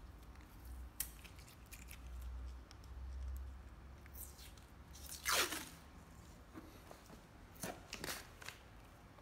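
Masking tape pulled off its roll with one loud rip about five seconds in, then a few short crackles near the end as the strip is torn off and pressed onto a plastic tool case.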